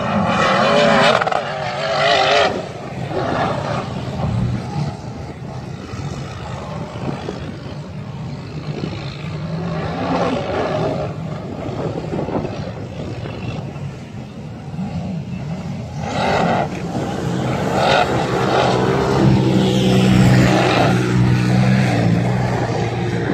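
Polaris RZR Turbo side-by-side engines revving hard as they climb a steep sand dune. The engines surge and ease off several times, loudest at the start and again over the last several seconds.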